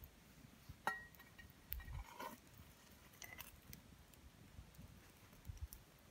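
Faint, scattered clinks and scrapes of hot coals being raked across the ground back into a campfire pit, a few separate strokes with one small ringing clink about a second in.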